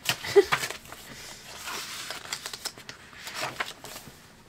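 Sketchbook paper pages being flipped and turned by hand: a run of rustles and soft flaps, loudest about half a second in and quieter toward the end.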